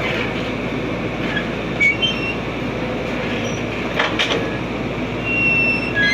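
Excavator working: steady machine noise, a sharp metallic click about four seconds in, and short high metallic squeals near the end.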